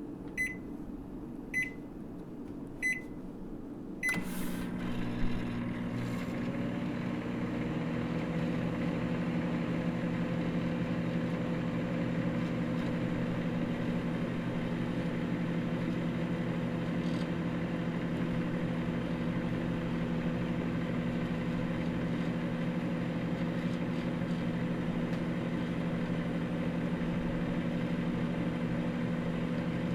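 Microwave oven keypad beeping four times, then the oven starting with a click about four seconds in and running with a steady hum.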